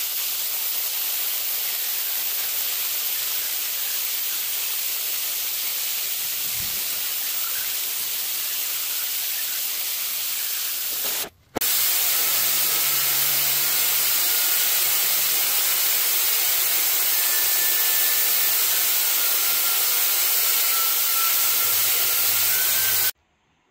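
Track torch cutting steel: a steady hiss from the oxy-fuel cutting flame, with a faint low hum in the second half. The hiss breaks off briefly a little before halfway and stops suddenly near the end.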